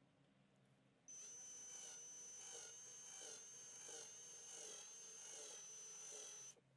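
A small electric power tool motor running with a steady high-pitched whine. It starts about a second in and stops shortly before the end, with a slow pulsing in its sound as it works.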